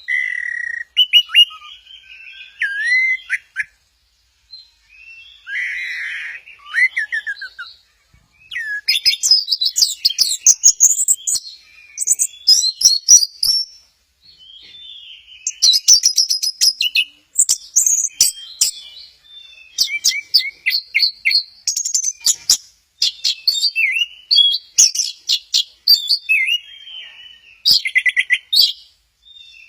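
Orange-headed thrush singing a long, varied song of quick, shifting whistled phrases and rapid trills, with short pauses between bouts; the song becomes dense and near-continuous after about eight seconds.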